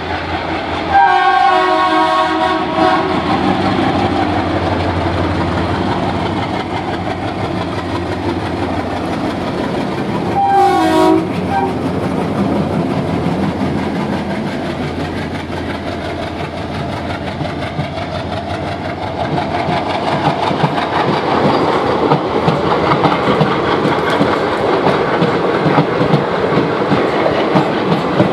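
The horn of twin ALCO diesel locomotives, a WDM 3A and a WDM 3D, sounding a multi-tone blast of about two seconds about a second in, and a shorter blast near eleven seconds. Under the horn is the steady running noise of the train, which grows louder toward the end as the train comes through.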